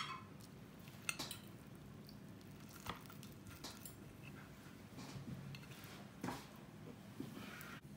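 Fork and knife cutting through soft eggy bread and banana on a plate, with scattered light clicks and scrapes of metal cutlery against the plate.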